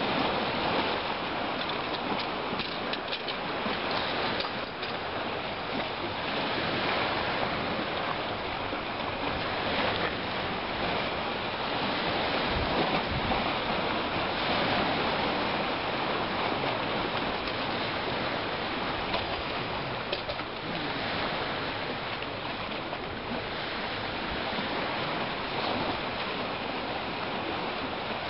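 Steady rushing wash of choppy lake water against the pier.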